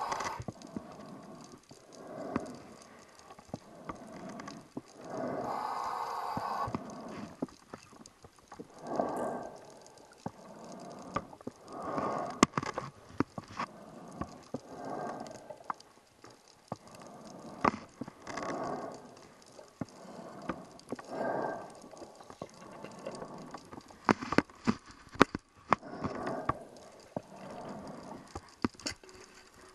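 A scuba diver breathing through a regulator underwater: a rushing swell of exhaled bubbles every few seconds, with inhaling hiss between. Sharp clicks come here and there, several close together near the end.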